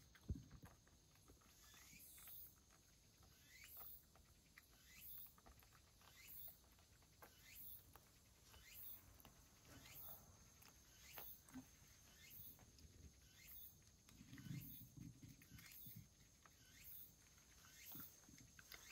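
Cat licking a soft lickable treat from a wooden dish, faint wet tongue clicks, with a pause while it licks its lips. A faint high chirp repeats about every second and a bit throughout.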